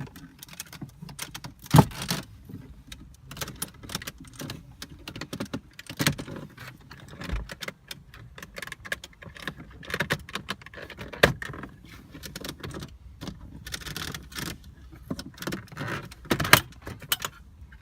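Irregular plastic clicks, snaps and rattles as BMW F10 dashboard trim is pried and pulled loose by hand, with several sharper knocks among them.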